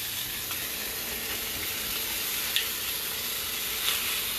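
Scallops searing in hot garlic oil in a pan: a steady sizzle with a couple of brief crackles, as they form a brown crust on the bottom.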